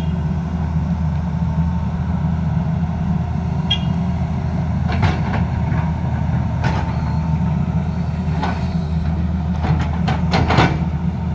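Tata Hitachi crawler excavator's diesel engine running steadily, with several short knocks from the bucket and boom working the ground from about five seconds in, bunched together near the end.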